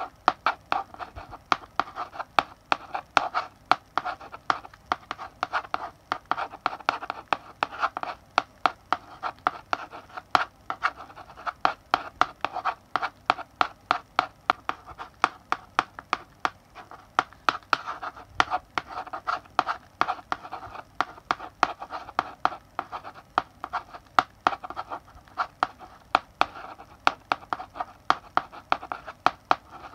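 Chalk writing on a blackboard: quick, sharp taps as the chalk strikes the board, with short scratchy strokes between them, steadily.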